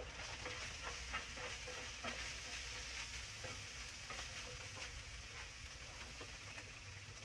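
Blueberry pancakes and roast beef hash sizzling as they fry, with a steady hiss and occasional light clicks and scrapes, as from a utensil stirring the hash.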